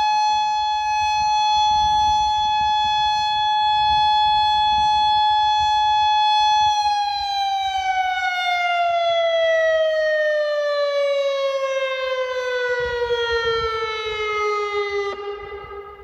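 Federal Signal Modulator 4016 electronic siren sounding its steady Alert tone. About seven seconds in the pitch starts to glide slowly down, dropping about an octave as the signal winds down, and it fades near the end.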